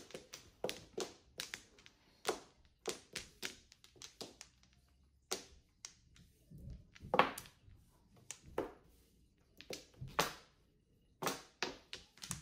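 Mahjong tiles clacking as they are drawn and discarded onto the table: sharp, irregular clicks of tile on tile and tile on tabletop, several in quick runs, with a short lull about halfway through.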